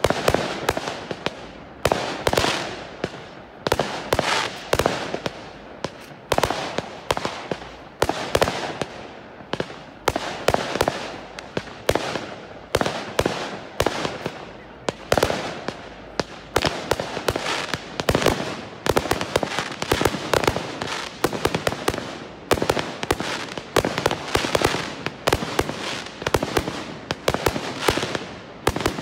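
Fireworks display: aerial fireworks bursting in a rapid, irregular run of sharp bangs, often several a second, coming closer together in the second half.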